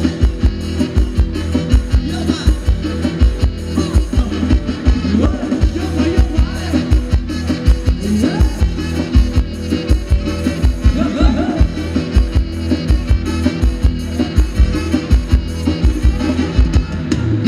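A live Thai ramwong dance band playing upbeat music: a steady, fast drum beat over bass, with a melody running over it.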